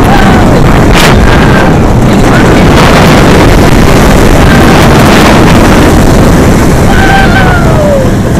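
Loud wind blast on the microphone mixed with the rumble of a Bolliger & Mabillard inverted roller coaster train running its course at speed. A brief falling tone cuts through near the start and again near the end.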